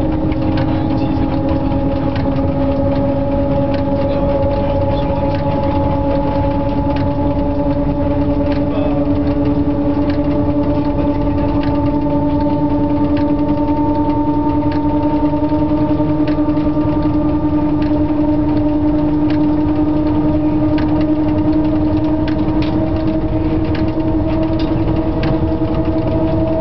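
Cab interior of a CC 6500-class electric locomotive under way: a steady hum and whine from the traction motors and gearing, rising slowly in pitch as the train gathers speed, with scattered clicks and knocks from the running gear and cab.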